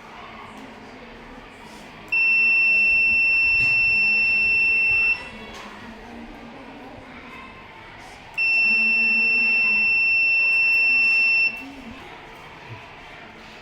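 Electronic buzzer of a touch-sensor emergency alert circuit sounding a steady high-pitched tone, twice for about three seconds each with a pause of about three seconds between: the alarm triggered by touching the sensor.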